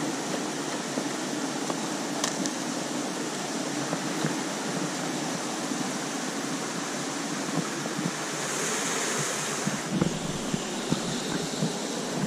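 Steady rush of a river flowing over rocks, with a few faint clicks and scuffs from footsteps and handling.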